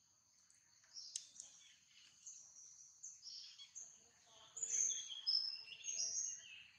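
High-pitched chirping animal calls, many short notes that shift in pitch. They grow louder and fuller in the second half.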